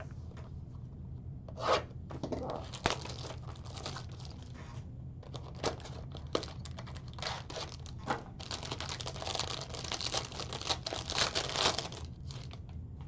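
Crinkling and tearing of a trading card pack's wrapper, with scattered taps and clicks of cards being handled. The rustling is busiest in the second half.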